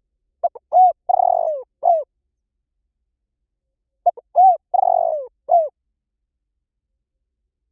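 Spotted dove cooing: two identical phrases about three and a half seconds apart. Each is a short lead-in note, an arched coo, a longer coo that falls in pitch, and a final coo.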